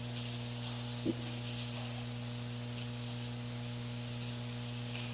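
Steady electrical hum with an even hiss from the church's microphone and sound system, with one short low bump about a second in.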